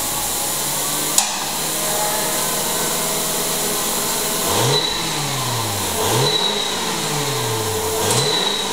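2003 Mazda 6's 2.3-litre four-cylinder engine idling, then revved three times, each rev rising quickly and dying back slowly to idle. A sharp click about a second in.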